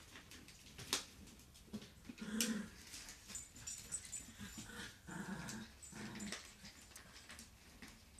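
Puppies growling in play: several short, low growls about two seconds in and again around five and six seconds in, with a few sharp clicks between them.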